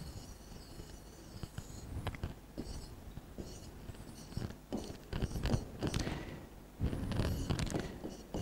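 Stylus drawing on the glass of an interactive touchscreen board: short scratchy strokes and light taps in irregular bursts as lines are drawn.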